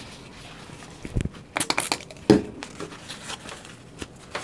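Handling sounds as multimeter test leads are cleaned: a soft knock about a second in, then brief bursts of cloth rustling and rubbing as a probe is wiped with a cloth.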